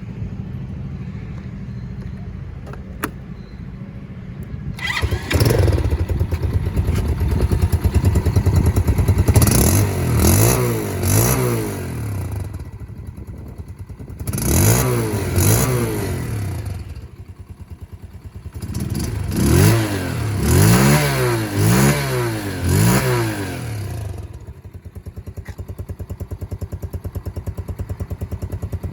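Smash RR 125 motorcycle's 125 cc engine idling, then revved in several bursts of throttle blips with the pitch rising and falling. It settles back to a steady idle near the end.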